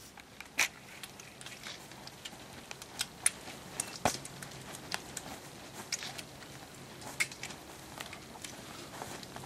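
Campfire crackling, with irregular sharp pops and snaps, a few of them louder.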